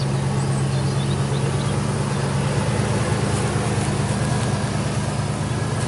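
Dodge Ram 1500 pickup's engine running steadily at low revs through a Borla S-Type cat-back exhaust as the truck crawls slowly. A low, even hum that holds at one level.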